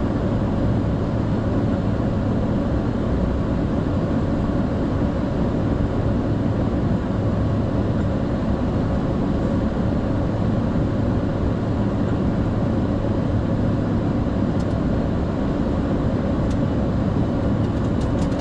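Steady flight-deck noise of a Boeing 747-400 freighter: engine and airflow noise with a low, unchanging hum, and a few faint clicks near the end.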